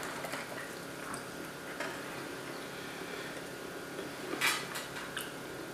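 A person chewing a bite of glazed donut topped with sprinkles: soft mouth sounds with a few faint clicks, the loudest about four and a half seconds in.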